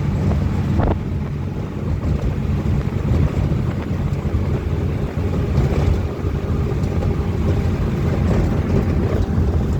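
A motor engine running steadily, a low rumble throughout.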